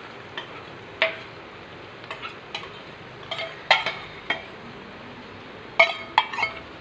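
Steel spoon and bowl clinking and tapping against stainless steel cooking pans as cooked dal is spooned in: a run of irregular sharp taps, some ringing briefly, with a cluster near the end, over a steady low hiss.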